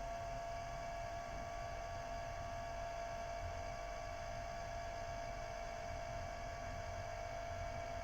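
Wanbo T2 Max projector running with a steady hum and a constant whining tone that does not change: the strange noise its owner complains of.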